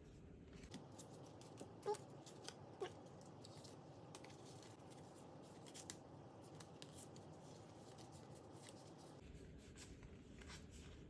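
Faint clicks and rustles of collector cards being leafed through by hand, over near-silent room tone.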